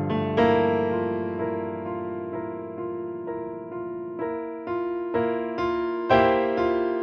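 Solo piano music: a chord is struck about half a second in and left to ring, then from about four seconds in chords are struck roughly twice a second, the loudest near the end.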